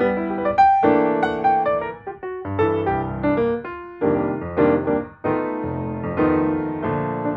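Background music: a piano playing a gentle melody with chords, notes struck every fraction of a second.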